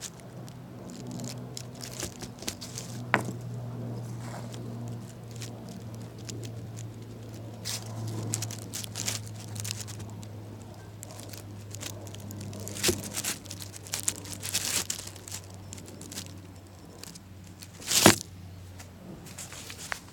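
Scattered crackling and rustling with a few sharp clicks, the loudest burst near the end, over a steady low hum.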